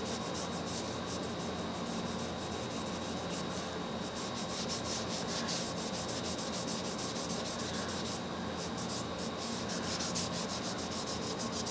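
Oil-soaked cloth rag rubbing back and forth over the painted cast-iron arm of a Singer Model 66 sewing machine in quick, continuous wiping strokes, cleaning off old oil and caked dirt.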